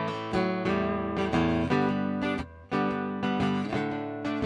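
Acoustic string instrument strummed in a steady rhythm, ringing chords with a stroke every fraction of a second and one brief break a little past halfway.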